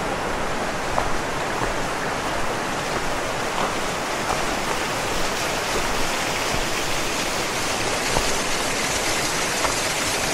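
Steady rush of running water from a small stream and waterfall, an even hiss with a few faint clicks over it.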